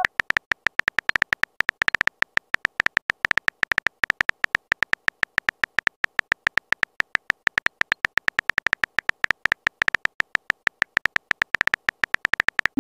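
Texting-app keyboard typing sound effect: a fast, steady stream of short, high clicky ticks, many a second, as a message is typed out letter by letter.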